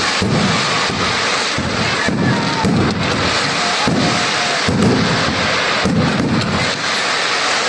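Fireworks display going off in a continuous loud barrage: many sharp bangs and crackles, with deep booms about once a second.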